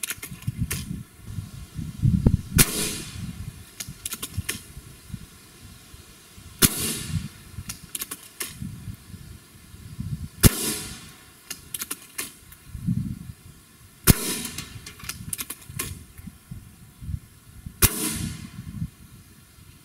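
Five shots from a .22 Gamo Swarm Magnum break-barrel air rifle fired point blank into a steel car door, about one every four seconds. Each sharp report merges with the pellet smacking through the sheet metal.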